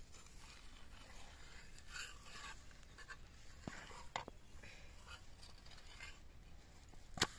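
Faint scraping and light clicks of a flat metal spatula working a bajra bhakri on a metal griddle, with one sharper click near the end.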